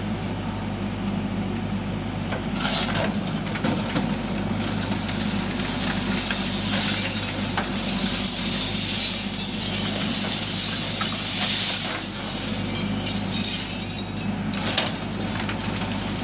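Backhoe loader's diesel engine running steadily while a bucketful of earth and stones spills into a steel truck body. The spill is a rattling hiss with clinks, starting about three seconds in and dying away near the end.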